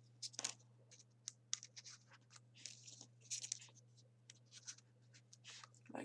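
Faint, irregular scratching and rustling of folded printer-paper 3D origami pieces as they are picked from a pile and pushed into the pockets of the paper model, a string of short rasps and light clicks.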